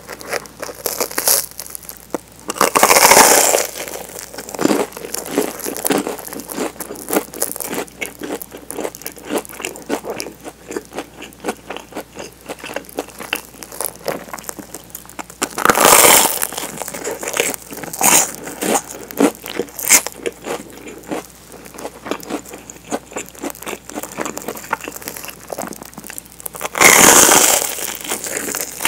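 Crisp toasted sandwich bread crackling close to the microphone as fingers tap and handle the crust. Three louder crunches come a few seconds in, about halfway, and near the end.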